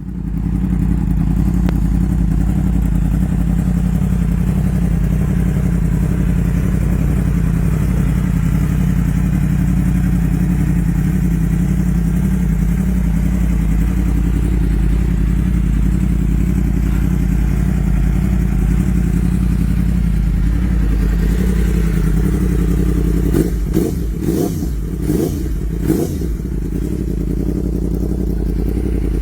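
Superbike with an Akrapovič exhaust idling steadily. Near the end it is blipped about four times in quick succession with short sharp revs, then settles back to idle.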